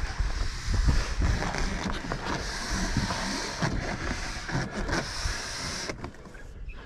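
The polyethylene hull of an Old Town Sportsman 106 MK fishing kayak scraping and knocking as it is slid and shoved across a car's roof-rack rails, with rustling and a few dull thumps. The noise drops away suddenly about six seconds in.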